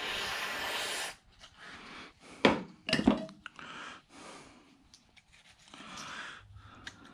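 Aerosol can spraying into an idler pulley's bearing with a steady hiss for about a second. Two sharp knocks follow, and then the rag rubs and scrapes against the pulley as it is wiped.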